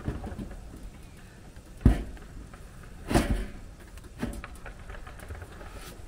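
Knocks and clatter of a portable tankless water heater's case against its mounting screws and the door panel as it is hung in place: a sharp knock about two seconds in, a longer clatter about a second later, and a lighter knock after that.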